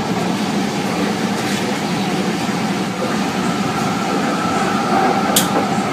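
Steady running noise of a moving passenger train heard from inside the carriage, with a short high hiss near the end.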